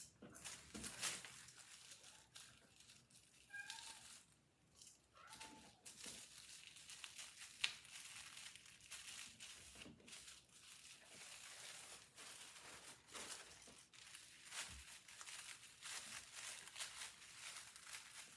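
Faint, irregular rustling and crinkling of tissue-paper sewing pattern pieces being handled, rolled and laid over one another.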